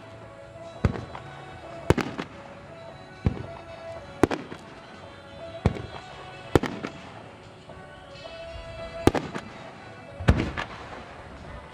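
Aerial firework shells bursting, about ten sharp booms at roughly one a second, each trailing off in a short echo. Background music plays underneath.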